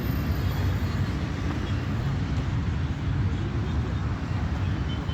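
Steady outdoor street noise: a continuous low rumble of road traffic.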